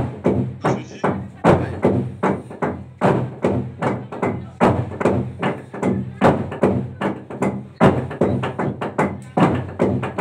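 A large hollowed-out log drum beaten by a team of young men with wooden beaters: rapid, rhythmic wooden strikes, several a second, each leaving a low booming ring.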